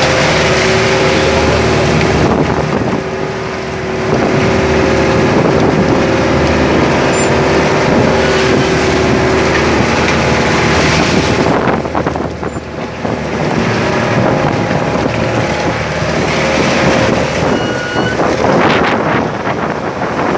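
Fishing boat's engine running steadily under heavy wind noise on the microphone, with rushing sea.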